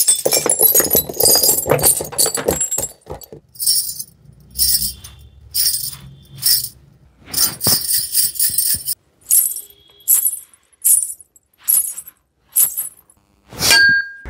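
Foley effect of broken car-window glass falling onto a car seat. A dense clatter of tumbling glass shards runs for about three seconds, followed by about a dozen short jingling showers of glass pieces, roughly one a second.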